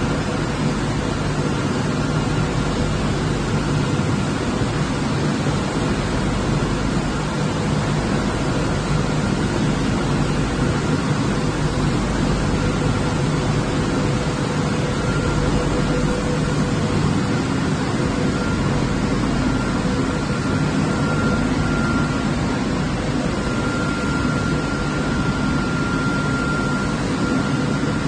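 Automatic pallet washing machine running steadily: an even rushing noise of the machine at work with a faint steady whine over it.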